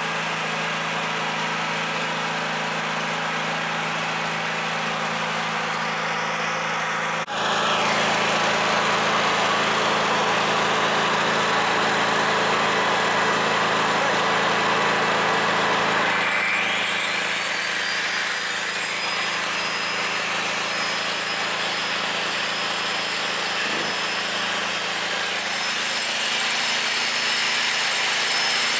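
BG-6500 petrol generator's 13 hp four-stroke engine running steadily while powering electric angle grinders. The sound jumps louder about seven seconds in. About halfway through, an angle grinder spins up with a whine that rises in pitch and then holds high and steady.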